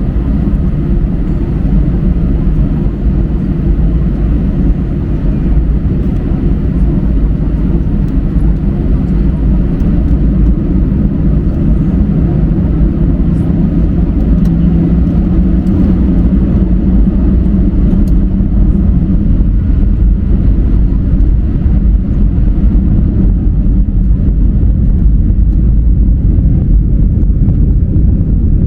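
Airliner taking off: a loud, steady low rumble of engines at takeoff power, with a faint tone rising slightly in pitch about halfway through.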